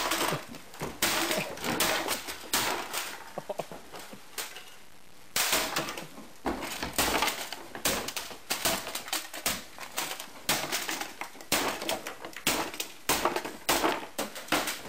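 Repeated blows with a bat smashing a plastic video game console: rapid, irregular cracking hits, a break of about two seconds around four seconds in, then another long run of strikes.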